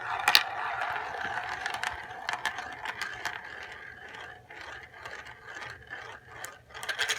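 Marbles rolling and rattling down a marble run track, with many sharp clicks as they knock against the track and each other. The rattle starts suddenly and slowly fades.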